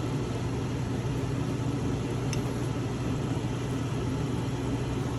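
A steady low mechanical hum, like a motor or fan running, with a faint click about halfway through.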